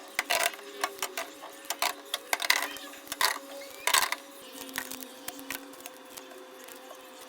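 Items being handled and set down on refrigerator shelves: a run of clicks and knocks, busiest in the first four seconds and thinning out after, over a faint steady hum.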